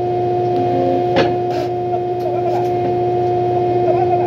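Bobcat skid-steer loader running, heard from the operator's seat: a steady engine drone with a constant high whine over it, and a single knock about a second in.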